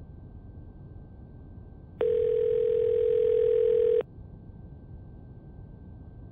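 Telephone ringback tone over a phone line. One steady low tone lasts about two seconds, starting about two seconds in, over faint line hiss. It means the called phone is ringing and the call has not yet been answered.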